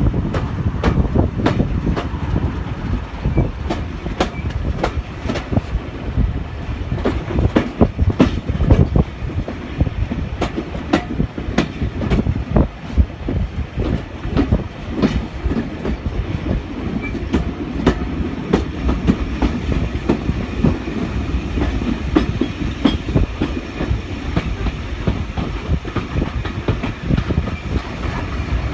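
Train running on the rails, its wheels clattering over rail joints: a steady rumble with a dense run of irregular clicks and knocks.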